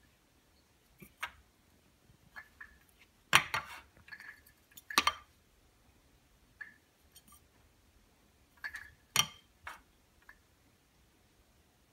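A cat batting a wooden toy that hangs on a string from a window handle, so that the toy knocks and clinks against the window frame and handle. Sharp knocks come at irregular intervals, the loudest about three and a half, five and nine seconds in.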